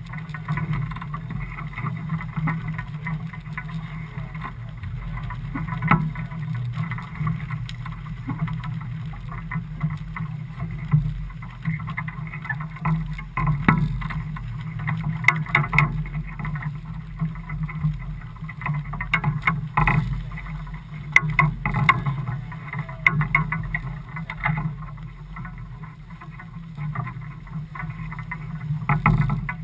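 A motor yacht on choppy water: a steady low rumble with wind and water noise, broken by occasional short knocks and rattles.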